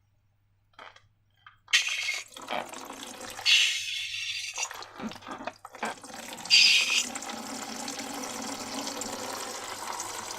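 Liquid pouring and trickling into a container, with a couple of louder splashy surges, after a short near-silent start.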